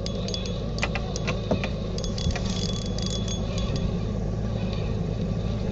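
Jet boat engine idling with a steady low hum, with scattered sharp clicks and clinks over it.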